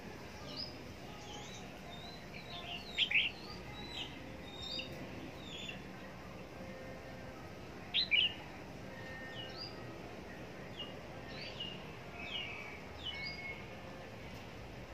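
Red-whiskered bulbul giving short, sharp chirping notes scattered through, with two louder calls about three seconds in and again about eight seconds in.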